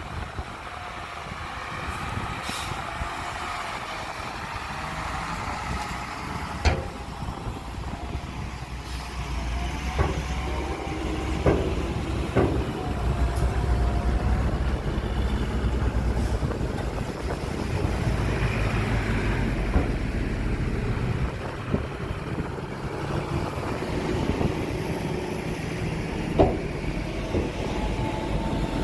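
Heavy diesel earthmoving machinery, dump trucks and a bulldozer, running with a steady low rumble and a wavering whine, broken by several sharp knocks.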